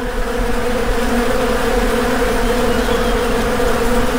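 Honeybee buzzing: a loud, steady drone of beating wings.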